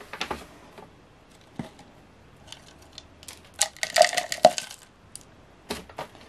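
A clear plastic cup being handled and a little soil tipped into it: scattered light clicks and taps of the plastic, busiest about four seconds in.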